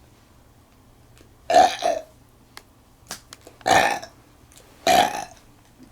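A woman burping loudly three times, the first a double burp, each lasting about half a second, with a few faint clicks between them.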